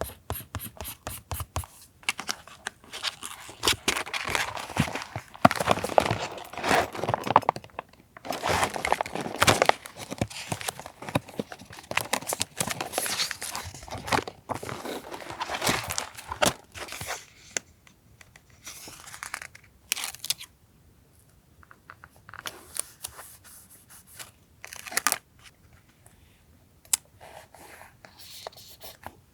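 Paper being torn and crinkled by hand: dense rustling and tearing for about the first half, then scattered short rustles and taps.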